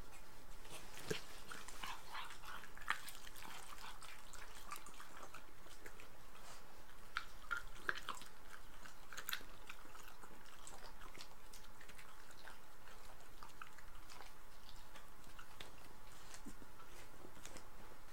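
Shiba Inu dogs chewing and biting pieces of steak: a scatter of small, irregular clicks and mouth sounds, busiest in the first half.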